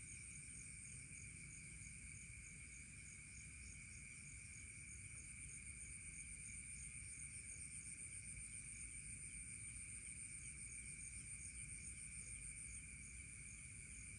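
Faint night chorus of singing insects. It holds a steady mid-high trill and a higher, shrill trill made of rapid, even pulses, over a low background rumble. Fireflies themselves are silent; the sound is crickets or similar insects.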